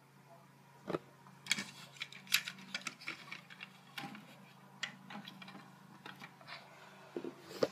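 Plastic LEGO bricks clicking and clattering as a small LEGO car is handled and pushed into a LEGO house's garage: a run of irregular sharp little clicks and knocks.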